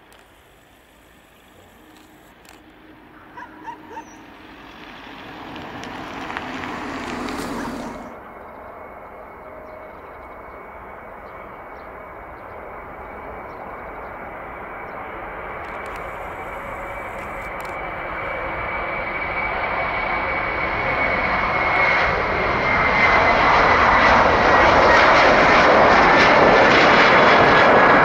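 Airbus A330 jet engines at takeoff power, growing steadily louder, with a high whine that sinks slightly in pitch as the airliner rolls and lifts off. Before this, a quieter swell of jet noise cuts off abruptly about eight seconds in.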